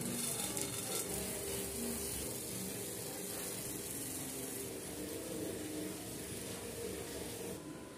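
Faint, steady sizzling hiss of pancake batter cooking on a hot non-stick pan.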